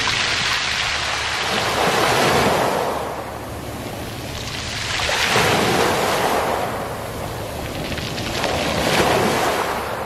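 Small waves washing up a beach of round black pebbles (mongdol) and drawing back, three times, with the pebbles rolling in the surf.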